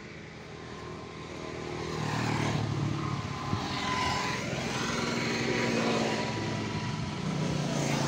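Passing road traffic: a motor vehicle's engine grows loud about two seconds in and stays loud, with a steady whine above it, easing and swelling again as vehicles go by.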